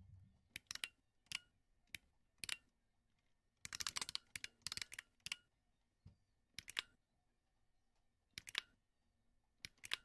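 Computer keyboard keystrokes clicking at an uneven pace. There are scattered single key presses and a quick run of typing about four seconds in.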